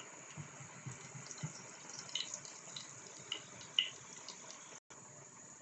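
Whole green cardamom pods frying in hot oil: a faint, steady sizzle with scattered small pops and crackles.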